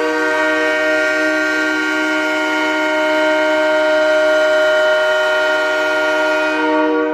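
Tucson Roadrunners' ice hockey goal horn: one long, steady blast sounding a chord of several tones.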